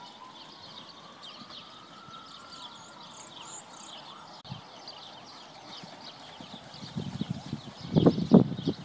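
Hoofbeats of a ridden warmblood mare cantering on a sand arena: dull thuds, faint for most of the time, then growing loud about seven seconds in and loudest near the end as the horse comes close.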